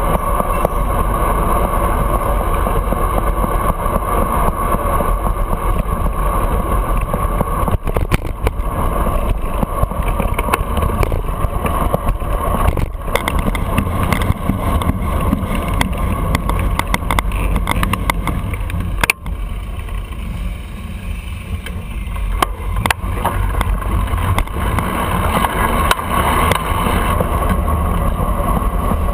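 Steady wind and road rumble on a bicycle-mounted camera riding through city traffic, with a few sharp knocks from the bike and mount. It eases off for a few seconds past the middle.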